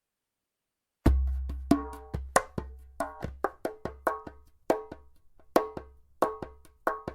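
Djembe played with bare hands: starting about a second in, an uneven run of ringing strikes, some in quick doubles, over a deep low boom that is strongest on the first stroke.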